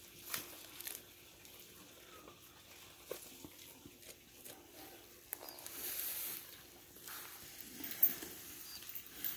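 Goat grazing on long grass: irregular tearing of grass stems and chewing, with scattered crackles and a sharper click about eight seconds in.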